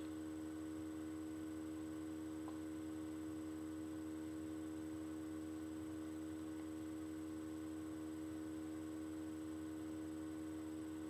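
Steady electrical hum made of a few fixed tones, unchanging throughout, with nothing else standing out.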